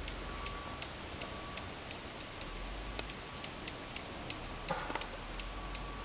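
A finch giving short, sharp, high-pitched alarm chips in a steady series, about three a second: scolding an intruder near its nest.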